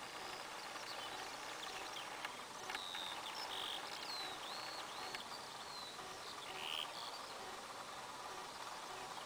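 Quiet field ambience: a steady faint hiss with a scatter of short bird chirps and calls, most of them between about two and a half and seven seconds in.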